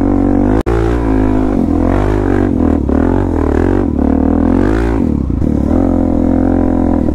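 Suzuki DR-Z400S single-cylinder four-stroke engine, fitted with a slip-on exhaust, pulling under load up a steep dirt climb. The revs rise and fall repeatedly as the throttle is worked, with a momentary break in the sound just over half a second in.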